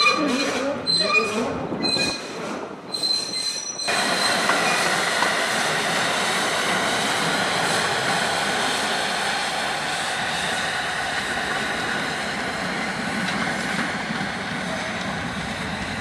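Narrow-gauge steam locomotive running past with regular exhaust beats, then, from about four seconds in, a steam-hauled train of small wagons running by with a steady, even noise of wheels on rail.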